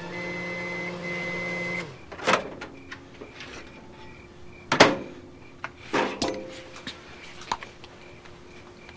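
A held music chord that cuts off about two seconds in, followed by a series of sharp knocks and clicks, the loudest near the middle, typical of a door or cupboard being handled.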